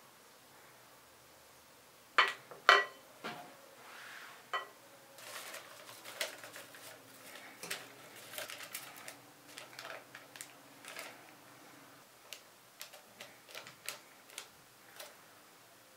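Two sharp knocks against a metal springform cake pan, then parchment paper crinkling and rustling as it is fitted inside the pan. Scattered light clicks and taps follow near the end.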